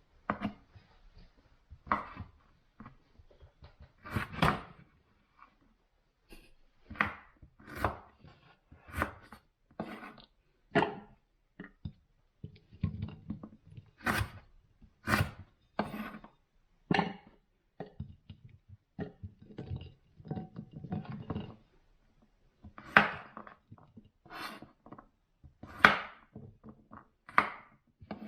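Knife chopping on a wooden cutting board: sharp single strikes at an uneven pace of roughly one a second, with quieter handling noise between some of them.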